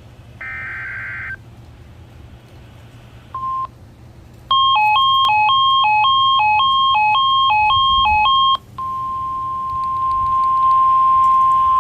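NOAA Weather Radio emergency alert tones. A short burst of warbling SAME data-header tones and a single beep come first. Then about four seconds of two tones alternate high-low several times a second, followed by the steady 1050 Hz warning alarm tone, which goes on past the end.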